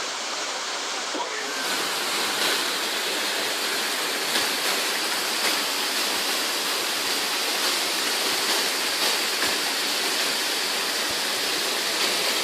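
Waterfall: falling water rushing in a dense, steady hiss. It gets fuller and a little louder about a second in.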